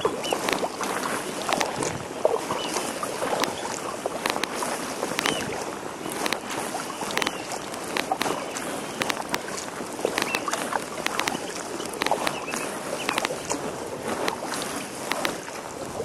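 Water splashing and lapping around a plastic kayak being paddled, with frequent small drips and splashes.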